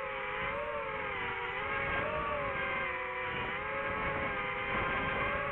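DJI FPV drone's motors and propellers whining in flight, the pitch drifting up and down with the throttle, over a low rumble of air noise.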